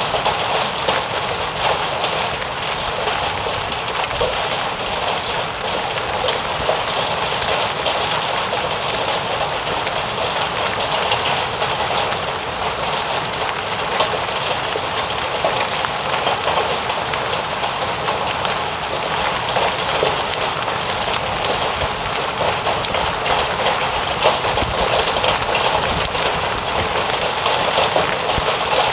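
Heavy rain mixed with hail pelting down steadily: a dense hiss of rain with many small, sharp ticks of hailstones striking.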